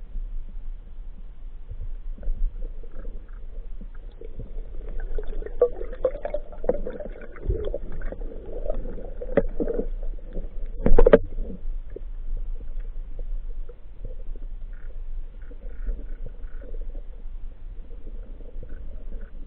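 Muffled underwater noise during a spearfishing dive, with scattered clicks and knocks; the loudest is a sharp knock about eleven seconds in.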